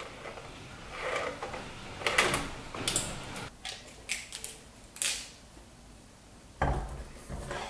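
Hands handling and fitting camera and lighting gear together: a run of short clicks, scrapes and clatters, then a heavier low knock near the end.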